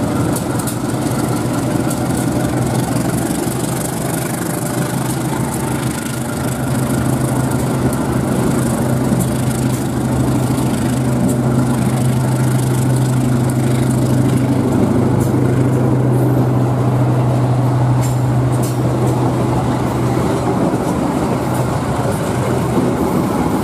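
A diesel passenger train running close by, with a steady low engine hum over rumbling rolling noise as its coaches move past slowly. The hum fades near the end.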